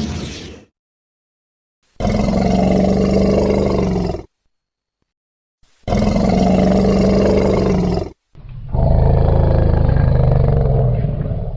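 A string of Allosaurus roar sound effects, made mostly from elephant roars. Three separate roars of two to three seconds each, with silent gaps between them; the last one is lower and duller. The end of an earlier roar dies away at the very start.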